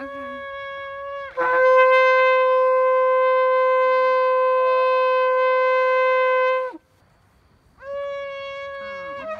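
Long curved shofar blown in sustained blasts. A steady horn note gets much louder and drops slightly in pitch about a second in, is held for about five seconds, then stops. After a short pause, another long note starts near the end.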